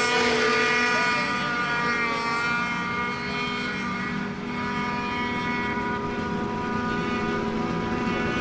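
Snowmobile engine running at high, steady revs, its pitch easing slightly about two seconds in and then holding.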